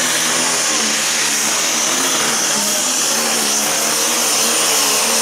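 John Deere Pro Stock pulling tractor's single-turbo diesel engine running flat out as it drags the weight-transfer sled, its note wavering up and down. A thin, steady high whistle rides over the engine.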